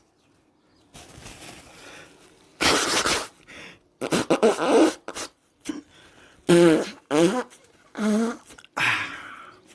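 A man making a body sound for a guessing game: a series of about six short, separate bursts of breathy, rasping noise, some with a voiced tone, starting about a second in.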